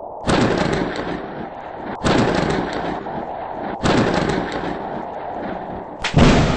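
Close thunder cracks: four sudden loud bangs, each trailing off in a rumble over a second or two.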